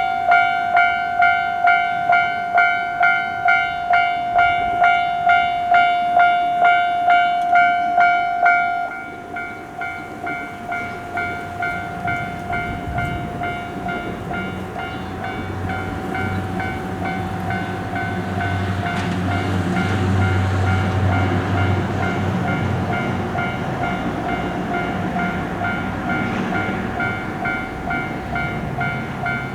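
Japanese level-crossing warning bell ringing its 'kan kan' about twice a second. About nine seconds in, the bell turns quieter but keeps ringing. A train then passes through the crossing; its running noise builds to its loudest around twenty seconds in and fades away.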